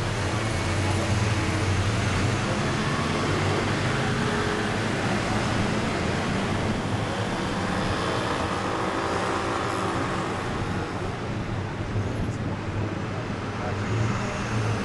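Steady engine hum and road noise of an open-top sightseeing bus driving through city traffic, heard from its open upper deck.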